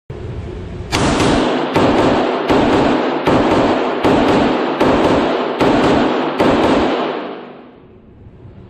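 Eight pistol shots from a Glock 34 Gen 5 9mm, about one every 0.8 seconds, each ringing on in the hard-walled indoor range. The echo dies away after the last shot.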